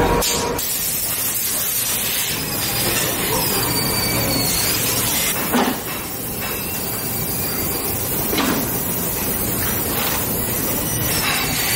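Steady hiss and running noise of factory machinery on a silicone-molding floor, with a brief knock now and then.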